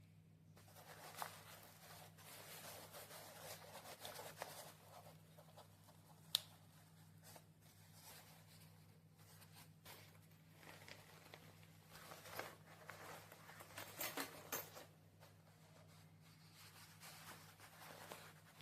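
Faint rustling of a fabric backpack being handled, with scattered clicks, a sharp one about six seconds in, over a steady low hum.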